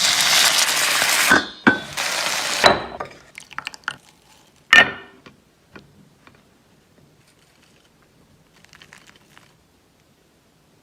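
Kitchen sounds: two short bursts of hissing, then scattered light clicks and a sharp clink of glass or crockery just under five seconds in, fading to faint taps.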